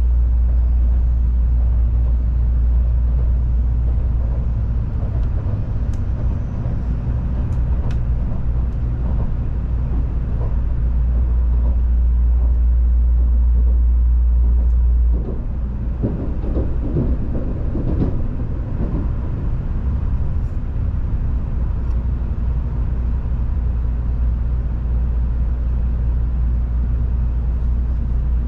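Running noise inside a Tokaido Shinkansen N700-series passenger car: a steady low rumble and hum from the train in motion. About fifteen seconds in, the deep hum drops and a rougher rumble with some rattling follows for a few seconds.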